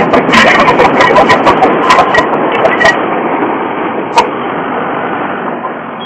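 Forway mini skid steer loader running at work, its engine noise broken by a quick string of clanks and knocks over the first three seconds and one more knock about four seconds in.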